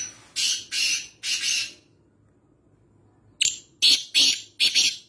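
Caged black francolin (kala teetar) calling: two calls of four quick notes each, the second starting about three and a half seconds in.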